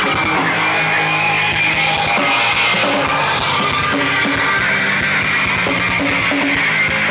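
Post-hardcore band playing live, loud distorted electric guitars holding sustained chords over bass and drums.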